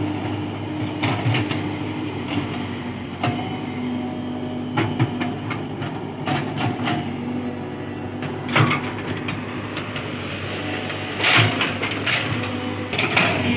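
Tata Hitachi mini excavator's diesel engine running steadily under hydraulic load while it digs. Short knocks and clanks come every second or two as the bucket works the soil.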